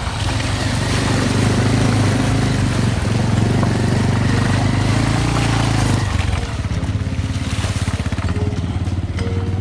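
Motorcycle engine pulling under load as the bike rides through a shallow, stony stream; about six seconds in it eases off and runs lighter and evenly pulsing.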